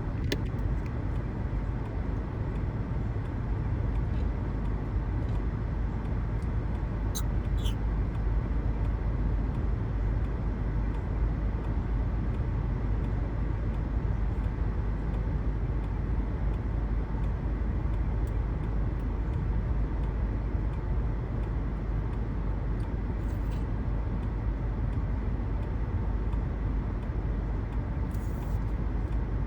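Strong wind ahead of a typhoon blowing without a break, a steady low rumble with a few faint ticks.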